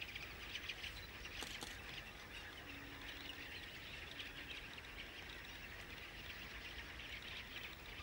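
Faint, steady chatter of many distant wetland birds calling at once.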